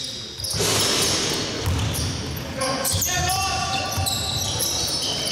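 Basketball game play on a wooden hall floor: the ball bouncing, players' feet on the court and shouted calls, echoing in the large sports hall.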